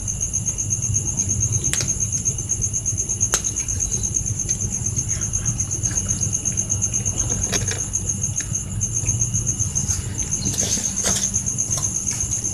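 Crickets chirring steadily, a continuous high, rapidly pulsing trill, with scattered soft clicks of cats chewing and licking food.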